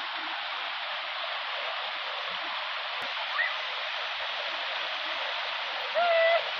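Shallow stream water rushing steadily over a bare rock slab. Near the end a brief, high-pitched vocal sound rises over the water.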